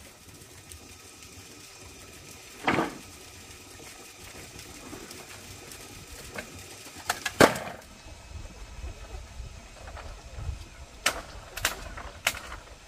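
Scattered sharp knocks: one about three seconds in, a quick double knock about halfway through, and three more close together near the end.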